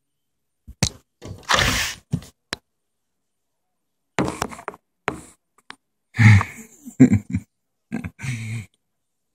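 Irregular thumps and knocks mixed with short rustling bursts, about a dozen over several seconds: handling noise from a phone held up against a window.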